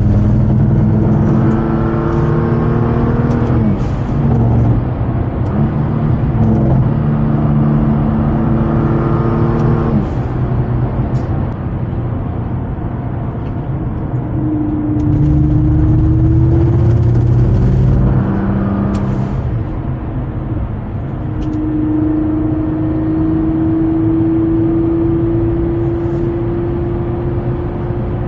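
Nissan GT-R's twin-turbo engine running under way, pulling through the gears. Its pitch holds or climbs, then drops at shifts about 4 and 10 seconds in, before a long, slow rise in the last third. A few short, sharp sounds come over the engine note.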